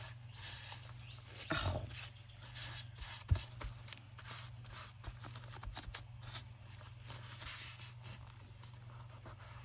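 Paper being handled, rubbed and scraped on a craft desk while pasting journal scraps, with a few small knocks, one sharper than the rest. A steady low hum runs underneath.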